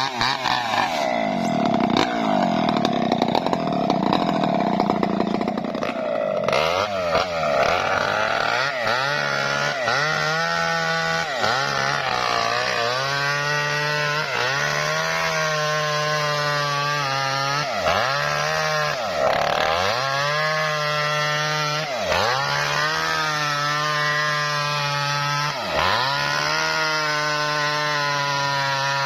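Small petrol-engine saw cutting lengthwise through a coconut-palm trunk, running steadily under load. From about seven seconds in, the engine pitch sags briefly and recovers about every two seconds.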